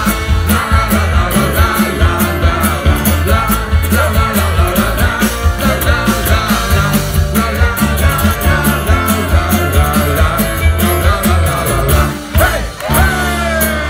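A live folk-rock band playing an instrumental passage of a song, with a steady drum beat, strummed acoustic guitar and a fiddle carrying the melody; near the end the lead line slides up and down in pitch.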